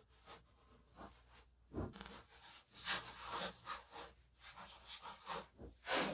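Blue painter's masking tape being pressed down by hand and pulled off the roll: a run of irregular short ripping and rubbing sounds, the loudest rip near the end as a long strip comes off the roll.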